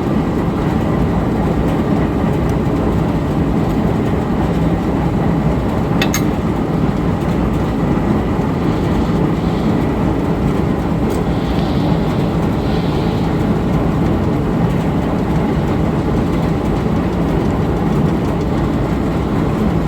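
Steady mechanical drone of a running gas engine, the kind that drives the shop's bearing line shaft, with a sharp click about six seconds in.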